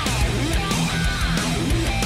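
Background music: rock with strummed guitar and a steady beat.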